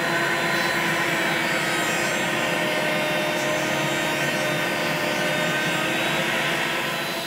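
Router in a router table running steadily at speed as a coping bit cuts the cope profile across the end grain of a wooden rail fed on a coping sled: a steady whine with cutting noise, easing slightly near the end.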